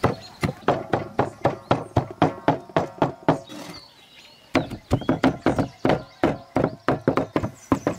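Two meat cleavers chopping chicken breast on a wooden board in a fast, even rhythm of about five strokes a second, breaking off briefly about four seconds in before carrying on.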